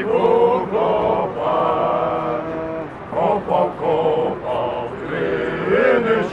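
Cossack men singing a song together in chorus, with long held notes.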